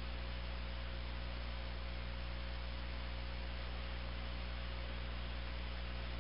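Steady electrical mains hum with its overtones and a faint higher steady tone, over an even hiss.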